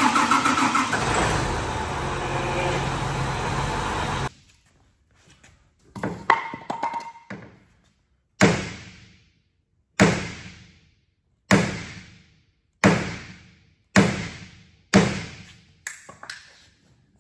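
A John Deere 8335R tractor's diesel engine starts and runs for about four seconds, then stops abruptly. Then a sledgehammer strikes a steel tractor wheel rim about eight times, a blow every second or so, each ringing out briefly: hammering out a bend in a rim that has been leaking air.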